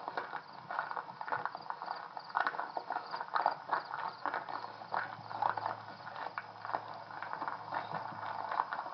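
Footsteps crunching irregularly, several a second, as people walk over rough ground.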